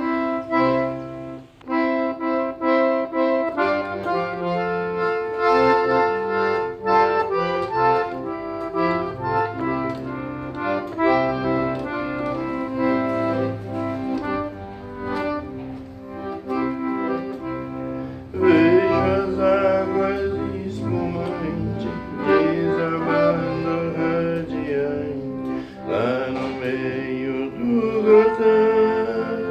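Instrumental introduction of a Brazilian country song: a melody over a steady bass line, with no singing yet. About two-thirds of the way through, a wavering melody line with strong vibrato comes in.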